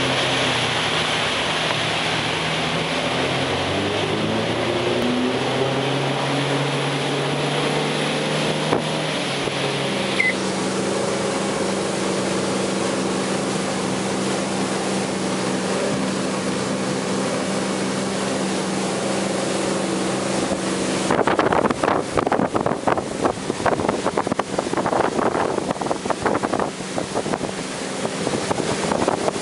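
Malibu Wakesetter 21 VLX wake boat's inboard engine under way, climbing in pitch as the boat speeds up and then holding steady while cruise control keeps it at about 20 mph, with one short high chirp about ten seconds in. About 21 seconds in, wind buffeting the microphone and rushing water take over as the loudest sound.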